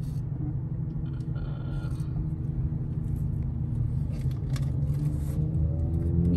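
Steady low rumble inside the cabin of a 2024 Kia K5 GT-Line stopped in traffic, with a few faint rustles and clicks as a paper air freshener is handled.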